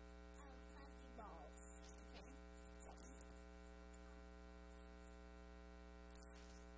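Near silence: a steady electrical hum from the sound system, with faint voices murmuring now and then in the first half.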